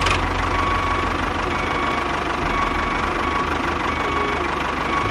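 Tractor engine running steadily: a low rumble with a faint high whine above it.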